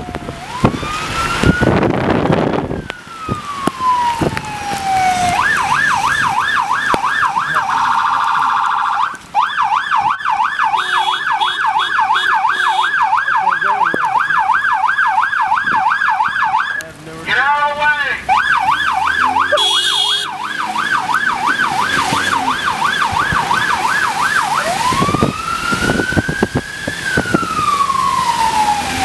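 Electronic emergency-vehicle siren sounding loud and close. A slow rising-and-falling wail switches a few seconds in to a fast yelp that runs most of the way. The yelp is broken by a short steady tone and a brief quicker sweep, then it goes back to the slow wail near the end.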